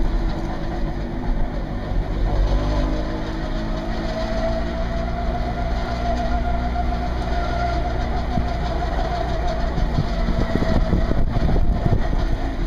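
Small two-stroke twin engine of a Goggomobil coupé running as the car rolls slowly in low gear. Its pitch rises a little about a third of the way in and then holds steady.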